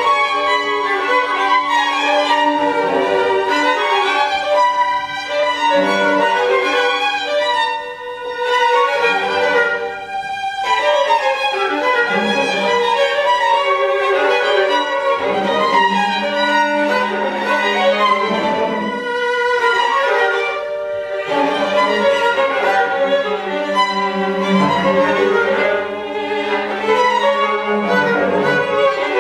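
Live string quartet of two violins, viola and cello playing contemporary chamber music in held, overlapping notes, breaking off briefly about ten and twenty-one seconds in.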